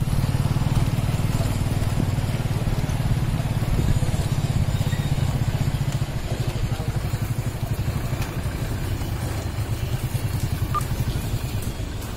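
Motorcycle engine running as the bike is ridden slowly along a rough lane, heard from the rider's seat as a steady low chugging that eases a little after about six seconds.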